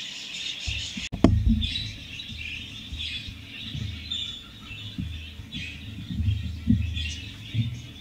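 Recorded bird chirping played from a phone speaker, a dense run of chirps, to draw out a lost pet budgie. Low thuds and a sharp knock about a second in come from handling and moving about.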